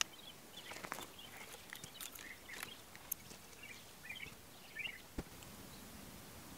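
Faint forest ambience: small birds twittering in short, scattered bursts, with a few sharp clicks over a steady soft hiss.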